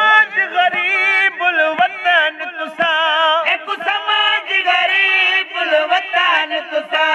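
Male voices chanting a Punjabi noha, a Shia mourning lament, the lead reciter singing into a handheld microphone with a wavering vibrato and others joining in.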